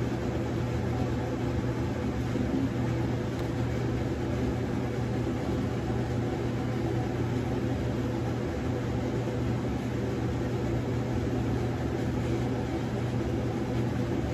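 Kitchen vent fan running steadily, a constant low hum with an even rush of air, switched on to clear smoke from searing.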